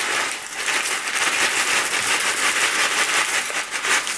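Corn flakes pouring from their plastic packet into a plastic freezer bag: a dense, crackling rustle of flakes pattering onto each other, mixed with the crinkle of the plastic.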